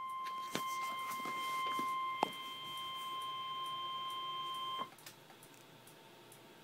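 NOAA Weather Radio warning alarm tone, a steady 1050 Hz beep sounding for almost five seconds and cutting off sharply, sent out as the weekly test of the alert signal. It plays through a weather radio receiver with a couple of sharp clicks, and a faint hiss is left after the tone ends.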